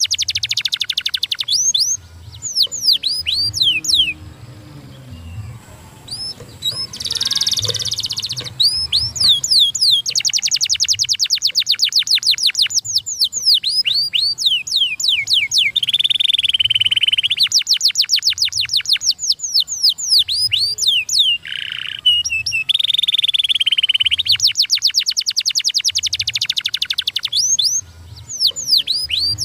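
Canary singing: fast trills of rapidly repeated, down-sweeping high notes, with a couple of sustained rolls, broken by short pauses.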